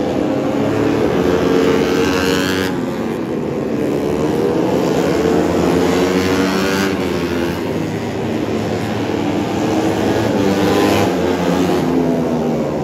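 Four-stroke 150cc underbone race motorcycles running hard on the circuit, several engines at once. The engine note climbs and then drops abruptly twice, as the riders change gear.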